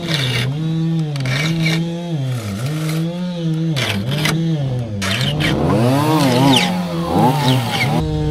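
Chainsaws at full throttle cutting firewood logs. The engine pitch dips and recovers again and again as the chain bites into the wood. From about five seconds in, a second saw at a different pitch runs alongside.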